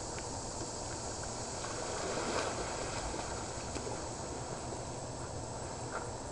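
Steady low background hiss of outdoor ambience with a few faint ticks and no distinct event.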